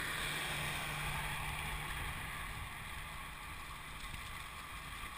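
Steady wind rush over the microphone of a handheld camera on a moving bicycle, a constant low rumble with a hiss above it.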